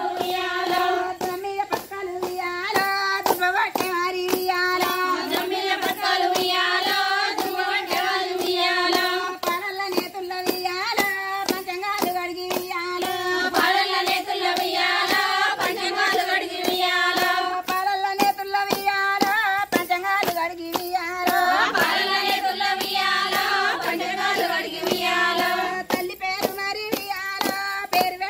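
A group of women singing a Bathukamma folk song together while clapping their hands in a steady rhythm.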